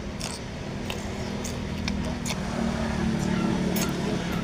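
A steady engine hum that grows louder about halfway through, with scattered light clicks and taps.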